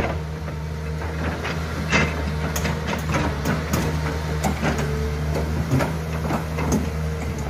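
Hydraulic crawler excavator running steadily, its engine hum and a held whine throughout, with irregular clanks and knocks from the bucket and arm as it scrapes and shapes an earth bank.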